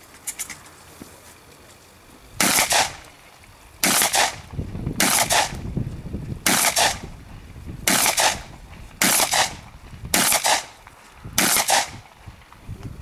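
A shotgun fired eight times in steady succession, about one shot every one to one and a half seconds, each shot with a short echoing tail.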